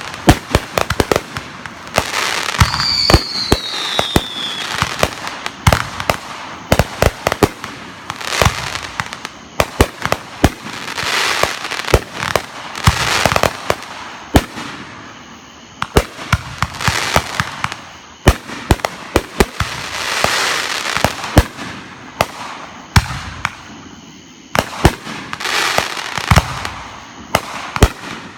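Fireworks going off: a steady run of sharp bangs and pops, with repeated stretches of crackling, and a short falling whistle about three seconds in.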